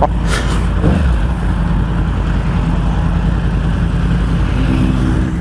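Decatted Yamaha R1's inline-four engine running as the bike is ridden, with its catalytic converter removed, heard over steady wind rush. The engine note holds fairly steady.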